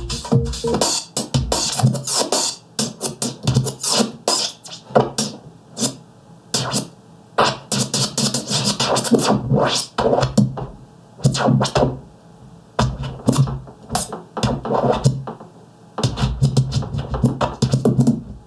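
Turntable-style scratching of an audio sample, played by a software scratch plugin that a hand-moved hard-disk platter controls as a jog wheel. It comes in quick, irregular back-and-forth bursts.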